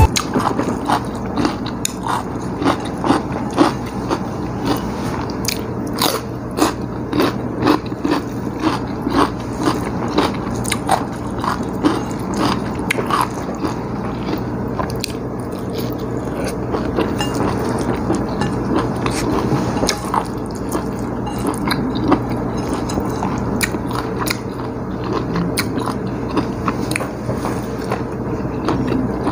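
Close-up mouth sounds of a person eating pecel of boiled papaya and cassava leaves by hand: chewing with frequent irregular wet clicks and smacks, over a steady low hum.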